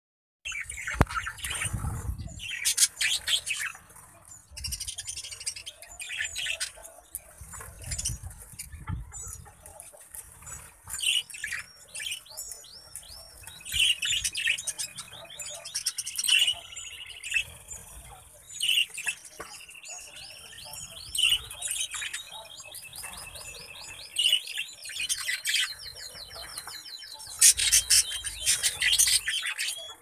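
A flock of budgerigars chirping and chattering, with several runs of rapid repeated trilling notes through the middle.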